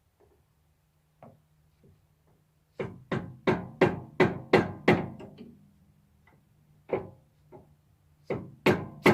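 Evenly spaced sharp knocks as the cover of a Lifan engine is tapped down into place on fresh sealant: a run of about seven knocks about three a second, a single knock, then another run starting near the end.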